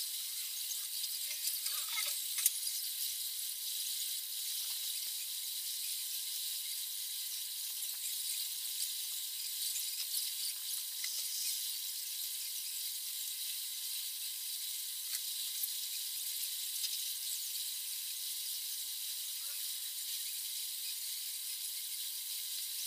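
Steady high-pitched hiss with a faint steady whine, and a few faint clicks about two seconds in.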